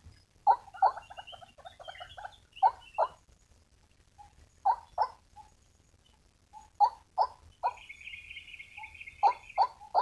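White-breasted waterhen calling: loud, harsh 'ruak' notes, mostly in pairs, repeated every couple of seconds with softer chattering between them. From about eight seconds in, a steady high trill runs under the calls for nearly two seconds.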